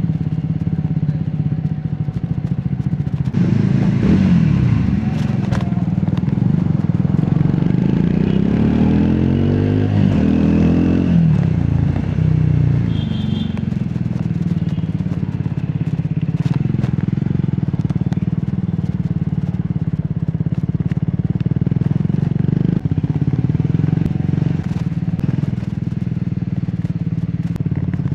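Triumph Scrambler 400X's single-cylinder engine and exhaust while riding: it revs up and drops back a few seconds in, climbs in pitch through two gears around the middle, then runs steadily at cruising speed.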